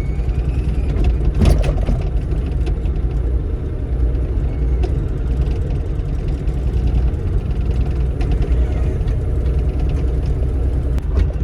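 Bobcat E35 mini excavator's diesel engine running with a steady low drone, with a sharp knock about a second and a half in and another near the end as the machine works.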